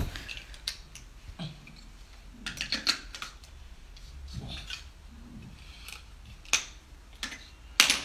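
Chunky plastic building blocks clicking and clacking as they are pressed together and set down on a tile floor: scattered sharp clicks, with a louder cluster of knocks near the end.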